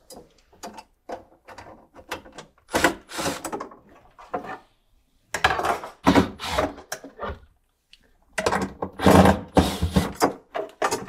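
Cordless drill/driver backing Phillips screws out of the cabinet side in several short runs, with knocks and clatter from the old metal roller drawer slide being handled as it comes off.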